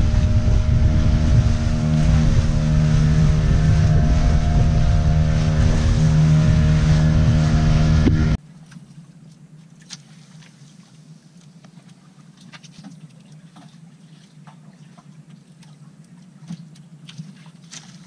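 A boat engine running steadily and loud, with a steady hum of even tones. About eight seconds in it cuts off suddenly, leaving a much quieter low hum with faint scattered clicks.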